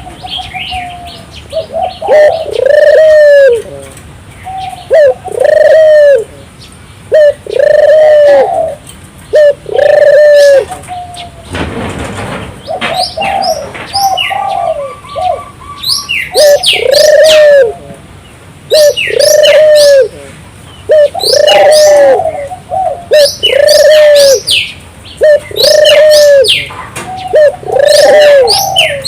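Barbary dove (burung puter) cooing loudly and repeatedly, one arched coo roughly every two seconds, with high, quick chirps of small birds over it.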